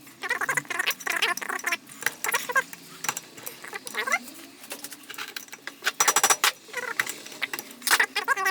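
A hammer striking a metal punch against the jaws of a Makita DDF484 drill chuck, a quick cluster of blows about six seconds in and another near the end, with repeated short squeaky chirps throughout.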